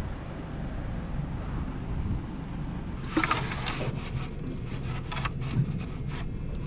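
Campervan engine running low and steady while the van is manoeuvred into a parking spot, with a few clicks and rattles from about three seconds in.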